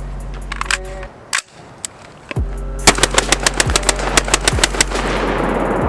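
AR-15 rifles firing rapidly, about six shots a second for roughly two seconds, starting about three seconds in. Under them runs instrumental hip-hop music with a deep, sliding 808 bass.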